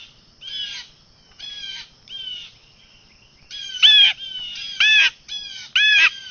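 A bird calling repeatedly: short, loud, clear calls, each arching up and down in pitch, given singly or in quick pairs with pauses between.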